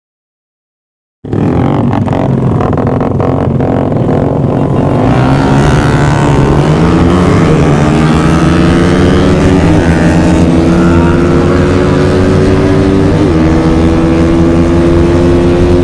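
Several motorcycle engines running hard at full throttle in a drag race. They start suddenly after about a second of dead silence, and their pitch climbs steadily as the bikes accelerate.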